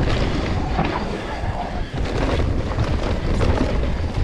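Mountain bike riding fast down a rough enduro trail: wind buffets the microphone over a dense rumble and frequent short knocks and rattles from the bike and its tyres on roots and dirt.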